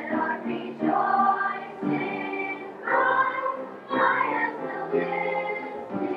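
Middle school chorus singing, with fresh louder notes coming about once a second.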